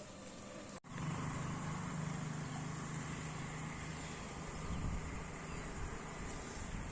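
A vehicle engine running steadily with a low hum, starting abruptly about a second in.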